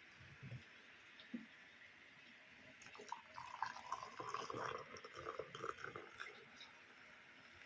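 Liquid being poured into a mug to make coffee, faint, starting about three seconds in and stopping a little past six seconds.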